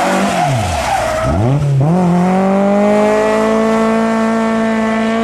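Peugeot 205 hatchback driven hard through a bend: its tyres squeal as the engine revs drop away. About a second and a half in, the engine picks up and revs high and steady as the car accelerates away.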